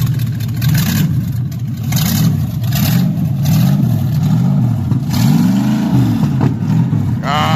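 Chevrolet Opala V8 on straight pipes, revved loud in repeated blips about once a second, with one longer rev a little over five seconds in.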